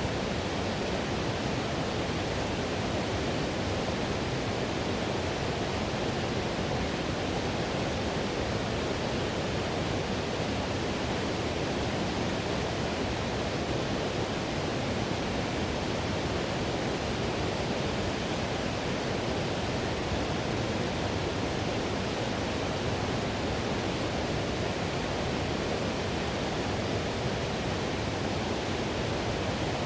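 River whitewater rushing steadily, a dense even roar with no separate splashes or changes.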